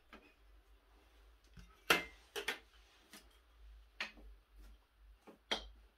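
A string of separate clicks and knocks from measuring tools, a folding rule and a square, being handled and set down on an MDF board, the loudest about two seconds in.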